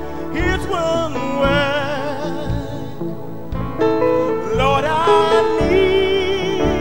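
Gospel singing: a voice with strong vibrato holding and sliding between long notes over instrumental accompaniment with a low steady beat.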